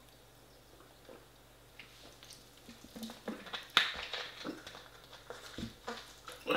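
Large plastic drinks bottle handled after a swig, its screw cap turned back on. A run of small plastic clicks and crinkles starts about two and a half seconds in; the sharpest comes about four seconds in.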